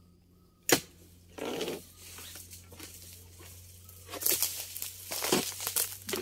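Oil palm harvesting chisel (dodos) on a long pole working into the palm's crown: a sharp knock about a second in, then scraping, tearing and rustling of dry fronds and frond bases, louder and more uneven over the last two seconds.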